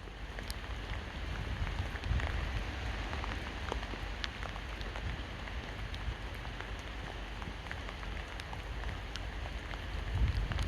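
Steady rain falling, with scattered individual drops ticking sharply on a hard surface.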